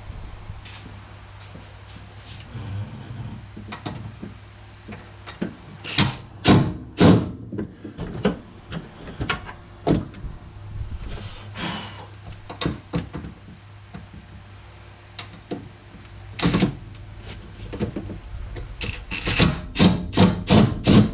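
Knocks and clatter of hard plastic trim and hand tools as a side-by-side's center console is worked loose and lifted out. Single knocks come every few seconds, then a quick run of about eight sharp knocks near the end.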